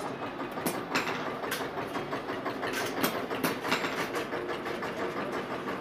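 Stick (arc) welding on a steel wire-mesh grille frame: a steady sizzling crackle with irregular sharp pops, as the mesh is tack-welded to the frame.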